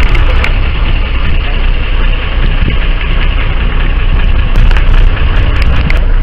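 A fishing boat's engine running at idle, a steady low rumble with a hiss of wind and water over it.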